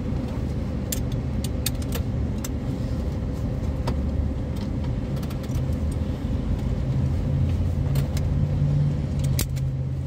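A 1972 Chrysler New Yorker's 440 V8 idling steadily, heard from inside the cabin, with scattered clicks and metal clinks from a seatbelt buckle and webbing being handled.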